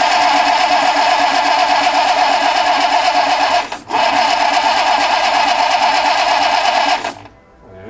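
Electric starter cranking the rebuilt Simca 8's four-cylinder engine in two long steady bursts, about four and three seconds, with a short pause between, without the engine catching.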